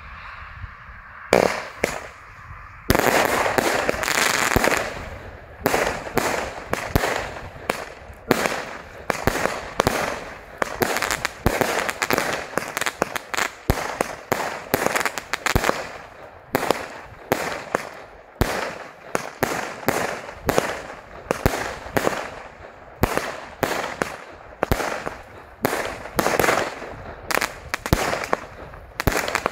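Superior Fireworks Equalizer, a 39-shot firework battery (cake) with 20 mm tubes, firing. The first shot goes off a little over a second in, and the rest follow in a rapid string of sharp launches and bursts, about one to two a second.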